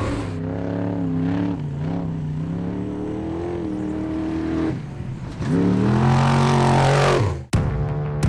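Off-road race truck's engine revving hard, its pitch rising and falling with throttle and gear changes. It dips about five seconds in, then climbs steeply before being cut off abruptly near the end, where music takes over.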